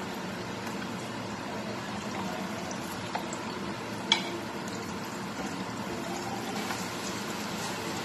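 Chopped aromatics sizzling steadily in hot oil in a nonstick frying pan, with one sharp click about four seconds in.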